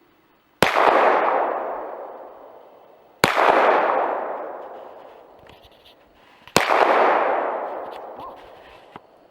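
SIG Sauer P226 pistol fired three times, about three seconds apart, each sharp shot followed by a long fading echo.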